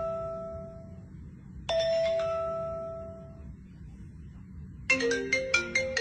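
Smartphone ringtone previews: a bell-like chime rings out and fades, is struck again just under two seconds in, and near the end gives way to a quick marimba-like ringtone melody.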